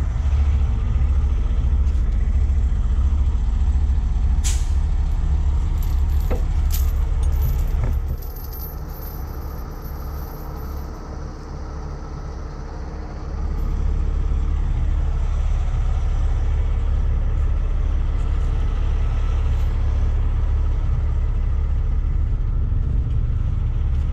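Heavy rotator tow truck's diesel engine running with a steady low rumble, which drops quieter for about five seconds in the middle and then returns. A couple of sharp clicks come near the first third.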